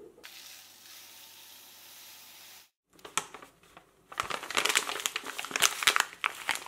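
Paper coffee bag being handled and torn open, crinkling and crackling in quick irregular strokes from about four seconds in. Before that there is only a faint steady hiss that cuts out.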